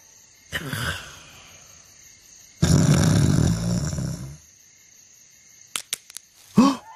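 Loud cartoon snoring from a sleeping man: a short intake, then a long, rough snore. Near the end come a few sharp clicks and a short falling pitched sound.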